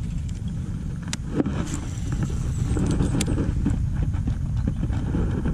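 A gold Shimano Calcutta Conquest 51 baitcasting reel being wound in to retrieve a lure. Its whir comes through as a low rumble of handling noise, with a few sharp clicks about a second in and again about three seconds in.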